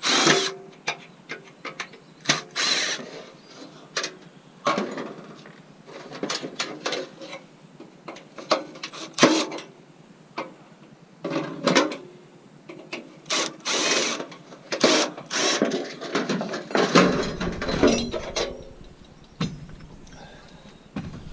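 Irregular clanks, rattles and scrapes of scrap metal being handled and taken apart by hand to sort out the non-ferrous pieces.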